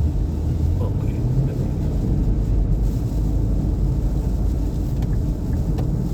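Steady low road and engine rumble heard inside the cabin of a moving Nissan Pathfinder.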